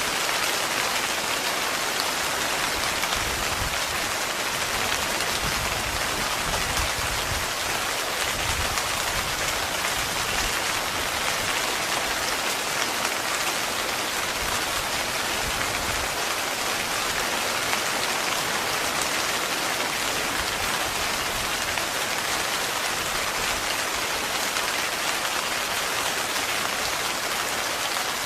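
Heavy, continuous rain falling on a tent, a steady even hiss. A low rumble sits underneath through the first half.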